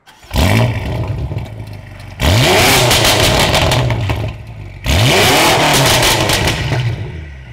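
BMW M5 F90's twin-turbo V8, breathing through a full catless Fi valvetronic exhaust, free-revved three times while standing. Each rev rises sharply; the second and third are held for a couple of seconds before falling back.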